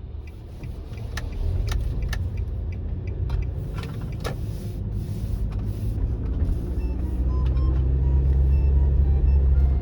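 Nissan Serena C25 minivan on the move: road and running noise with a low drone that grows stronger and louder over the last few seconds, and a few light clicks early on.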